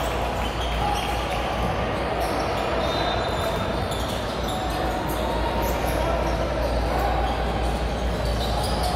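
Basketballs bouncing and sneakers squeaking on a hardwood gym floor during play, with many short sharp sounds over a steady hum of voices, echoing in a large gymnasium.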